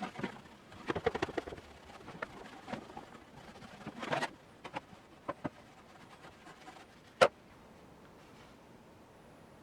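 Small handling sounds from hand work on a rusty iron tool head: scattered clicks and short scrapes, with one sharp click about seven seconds in.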